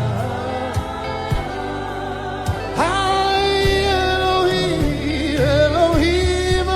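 Live gospel worship music: a singer holds one long note from about three seconds in, over steady sustained band backing with a few drum hits.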